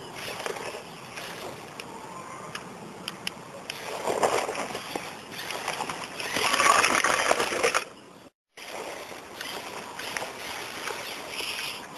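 Lego Technic trial truck crawling through dry leaves and grass: an irregular crackling rustle of leaf litter and twigs under its tyres, with small clicks, swelling louder twice and cutting out completely for a moment just after eight seconds.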